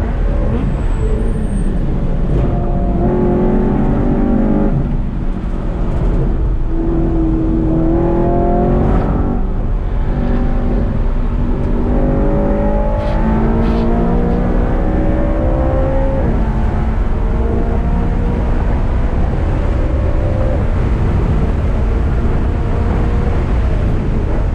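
BMW car engine heard from inside the cabin while driven hard on a race track, its pitch climbing under acceleration again and again and dropping back at each shift or lift, over constant road rumble.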